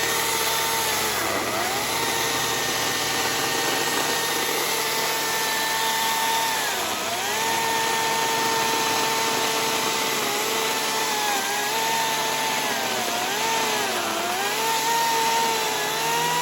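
Ryobi 40V brushless cordless chainsaw running and cutting green ash, a steady high whine. Its pitch drops several times as the chain is loaded in the wood and climbs back as the load eases.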